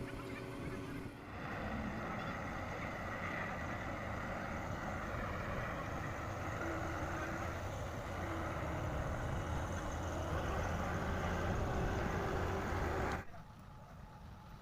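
Heavy farm-machinery diesel engine, such as a combine harvester's, running steadily under load; it starts about a second in and cuts off suddenly near the end.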